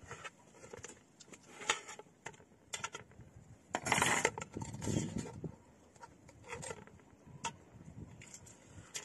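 Light clicks and clinks of cooking utensils and dishes being handled, irregular and scattered, with a short scraping rustle about four seconds in.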